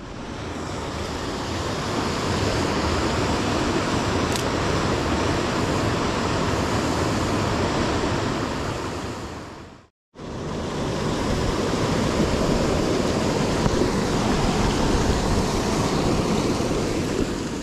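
Steady rush of water from a clear mountain trout stream and its small waterfall. It cuts out abruptly for a moment about ten seconds in, then resumes.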